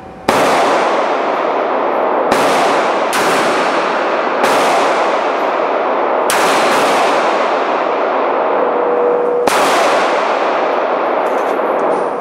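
Six pistol shots fired at an irregular pace, each a sharp crack followed by a long echoing tail that fades slowly, with the tails running into one another under the enclosed range's reverberation.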